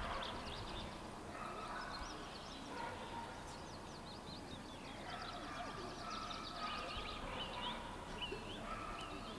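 Birds singing faintly: a chorus of many short, high chirps and trills over light outdoor background noise.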